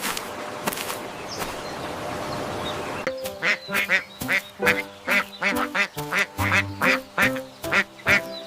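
A steady hiss for about three seconds, then a duck quacking rapidly, about three quacks a second, over background music.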